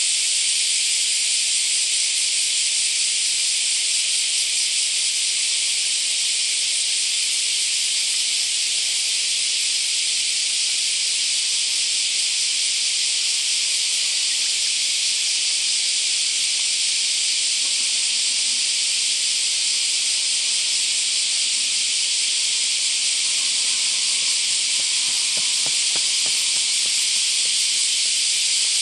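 A steady, high-pitched hiss that holds at the same level throughout, with hardly anything lower beneath it.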